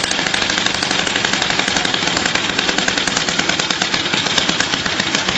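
YN27 hand-held petrol rock drill running, its two-stroke engine driving a rapid, steady hammering.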